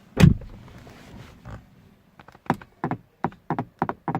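Interior door handle of a 2015–2018 Chrysler 200 being worked: a heavy thump as it is first pulled, then a run of sharp clacks about three a second as the handle is flicked repeatedly. The handle is loose in its mounting; tightening its 7 mm bolt cures the noise.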